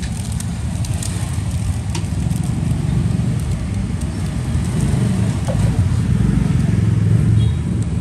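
Low rumble of road traffic that swells for a couple of seconds starting about five seconds in, then eases, with a couple of faint clicks.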